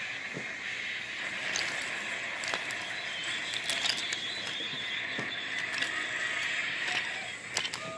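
Steady hiss with scattered light clicks and rattles as wooden toy trains are rolled along wooden track.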